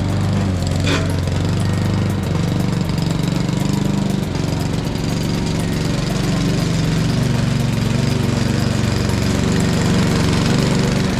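Walk-behind rotary lawn mower running steadily while cutting grass, its engine giving a low, fast-pulsing drone. A brief sharp rasp comes about a second in.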